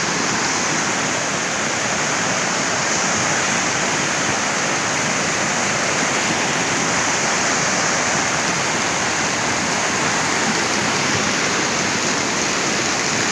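Floodwater rushing, a steady, unbroken wash of noise that holds at the same level throughout.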